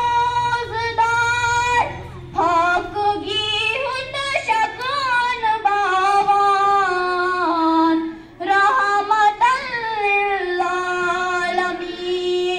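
A child's solo voice singing a naat, a devotional poem in praise of the Prophet, unaccompanied, in long drawn-out melodic phrases. There are short breaks for breath about two seconds in and again about eight seconds in.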